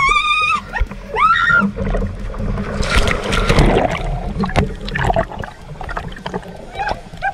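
A woman shrieks with a high, wavering cry as a Laser sailing dinghy tips over, followed about three seconds in by a rush of splashing water as the boat capsizes and she goes into the sea. Smaller splashes and knocks follow.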